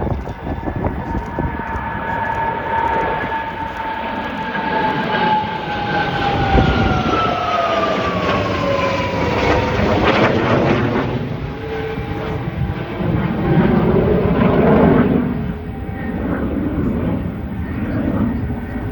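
Aircraft flying past: its high engine whine falls in pitch as it goes by, about halfway through, and gives way to a rumble that swells and then eases.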